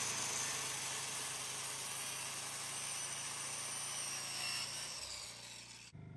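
Corded circular saw running and crosscutting a milled wooden floorboard, a steady high whine over the noise of the blade in the wood. It cuts off suddenly about six seconds in.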